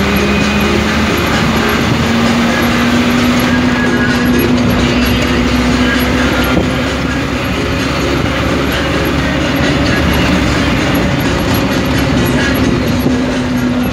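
Road noise inside a moving vehicle's cab: a steady drone of engine and tyres on a concrete road, with a hum that steps up slightly in pitch about a second in.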